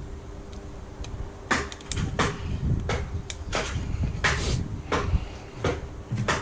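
A run of irregular knocks and bangs, a dozen or so, some coming in quick pairs, over a faint steady hum; the kind of bashing around that is put down to neighbours.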